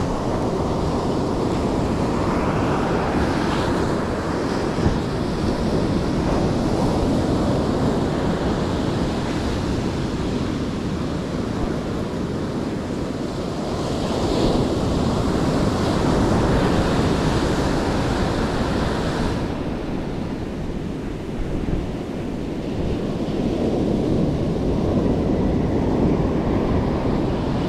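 Ocean surf breaking and washing up a sandy beach, swelling and easing in several waves, with wind buffeting the microphone.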